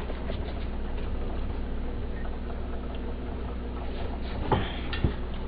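Steady low hum with faint scattered ticking, broken by two sharp clicks about four and a half and five seconds in.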